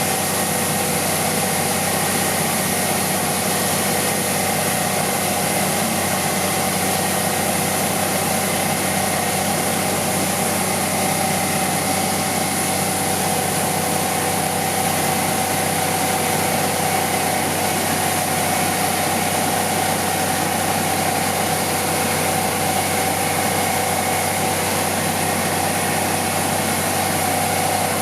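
Machinery running steadily with an engine-like drone and a constant hum, unchanging throughout, with no revving or stops.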